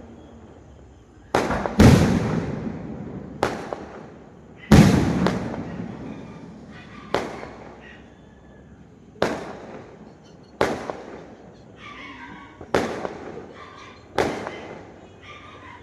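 Fireworks going off: about ten sharp bangs, one every second or two, each trailing off in a rolling echo, the loudest about two and five seconds in.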